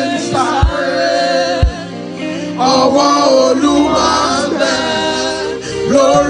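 Gospel worship song: a male voice sings over band accompaniment. A kick drum beats about once a second for the first two seconds, then drops out under a held bass note.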